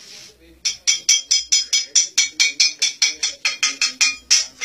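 Rapid metallic clicking of barber's scissors working against a meat-cleaver blade during a haircut, about five sharp clicks a second. The clicking starts after a brief pause.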